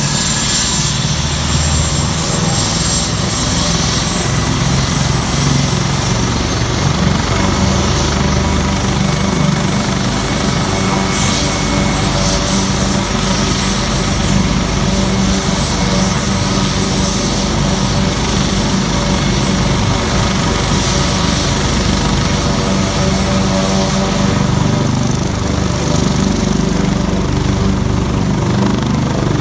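AgustaWestland AW139 helicopter running on the ground with its rotors turning: steady turbine whine over dense rotor noise. The whine rises slightly in pitch near the end as power comes up for take-off.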